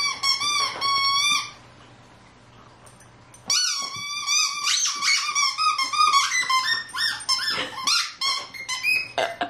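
A rubber squeaky dog toy squeaking over and over as a malamute puppy chews on it. A short burst of squeaks comes first, then about two seconds of quiet, then a longer run of rapid, high-pitched squeaks.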